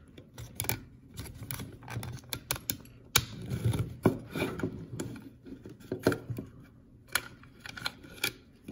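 Plastic M4-style collapsible airsoft rifle stock being wrestled off its buffer tube: irregular clicks, knocks and rattles from the release lever and the stock shifting on the tube.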